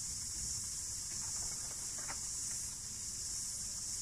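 Cicadas singing in a steady, high-pitched chorus that does not rise or fall.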